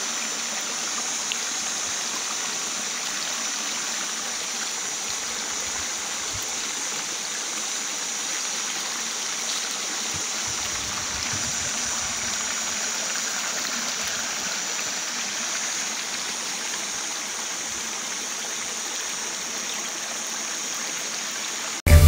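Shallow river water flowing steadily over and between rocks, trickling through small riffles.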